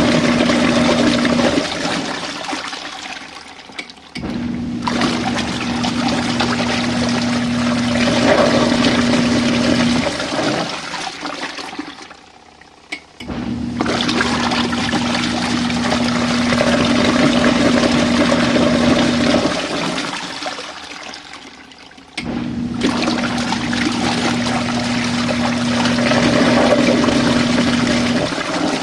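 Compact RV washing machine agitating during a rinse: the motor hums and water swirls loudly in the tub for about six seconds, then the motor stops and the water dies away before it starts again. This happens about every nine seconds, three times.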